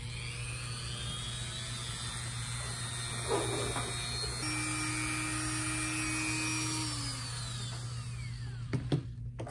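Small handheld rotary tool with a tiny cutoff wheel running at high speed with a steady whine. About seven seconds in it is switched off and spins down with a falling whine, followed by a couple of sharp clicks.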